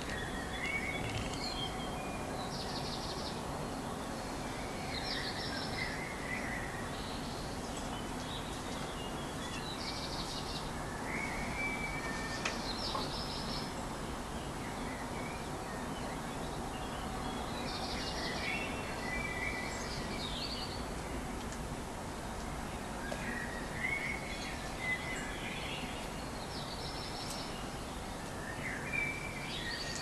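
Songbirds singing at dawn, with short song phrases every few seconds, some high and rapid, others lower, over a steady low background rumble.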